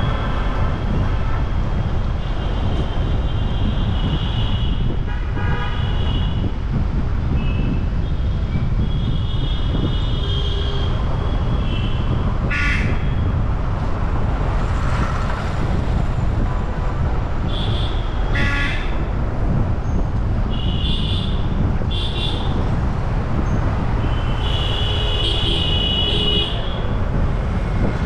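Car driving, its steady road and engine rumble picked up by a dash cam in the cabin, while vehicle horns toot several times, with a longer toot near the end.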